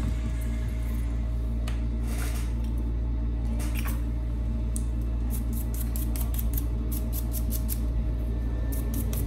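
Quick small clicks and ticks of a smartphone's frame and parts being handled and set down on a silicone work mat, coming thick in the second half, with a couple of short scrapes earlier, over a steady low hum.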